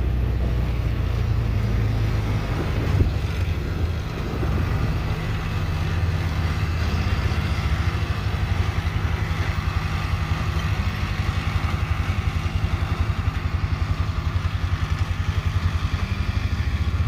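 John Deere 8100 tractor's diesel engine running under load while pulling a hay baler: a steady low drone that settles into a fast, even throb about six seconds in.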